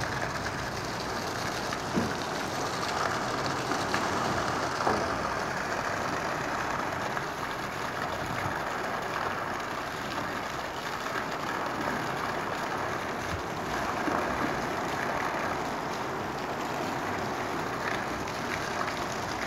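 Heavy rain falling steadily, with a stream of runoff water pouring from above and splashing onto a muddy puddle.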